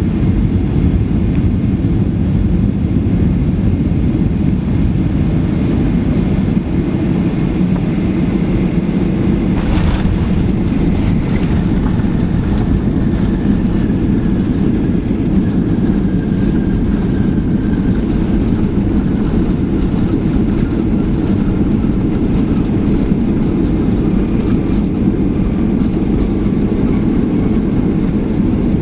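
Steady cabin noise inside a Boeing 737-800 airliner, a dense low rumble of its CFM56 jet engines and airflow, with a single brief knock about ten seconds in and a faint whine slowly falling in pitch afterwards.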